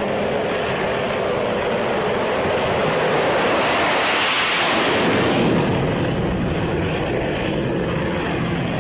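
Naval HAL Tejas fighter's single GE F404 turbofan running at full take-off power during its deck run, a loud continuous jet noise with wind on the microphone. It swells to its loudest about four to five seconds in as the jet passes close by, then eases off as it climbs away from the ski-jump.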